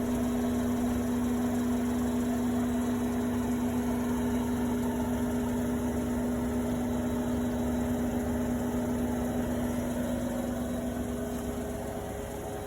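Bosch Series 6 washing machine on its full 1400 rpm spin, a steady motor-and-drum hum with almost no vibration or rattle. Near the end the main hum note drops out and it gets a little quieter.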